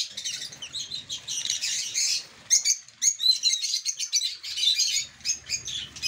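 A flock of caged African lovebirds chirping together in a dense, continuous high-pitched chatter, with brief lulls near the middle.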